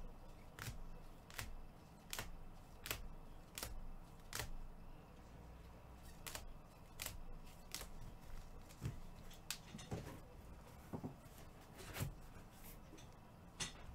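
Trading cards being handled and flipped through one by one, a light click about every three-quarters of a second.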